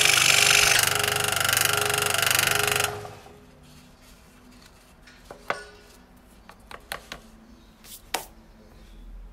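Macallister MSS125 scroll saw running steadily with an even, pulsing chatter as its blade cuts a circle through a wooden board, then stopping abruptly about three seconds in. A few light knocks of wood being handled follow.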